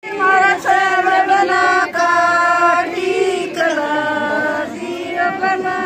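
Dance music with singing playing, long notes held between short breaks.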